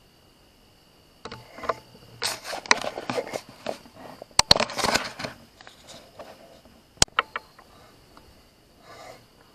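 Close rustling and crackling for a few seconds, with sharp clicks in the middle, a single sharp click a few seconds later and a little more rustling near the end.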